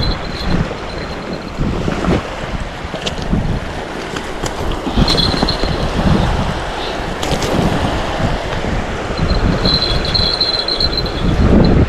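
Wind buffeting the microphone in a steady low rumble, with a few sharp clicks in the middle and a high thin tone that comes and goes twice.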